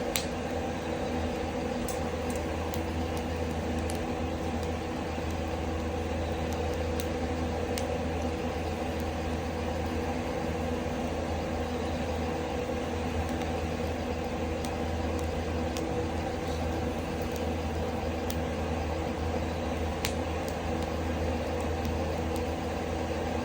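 Loud ceiling exhaust fan running with a steady hum as it draws smoke from a wood fire, burying the fire's own sound; a few faint sharp crackles of the burning firewood come through here and there.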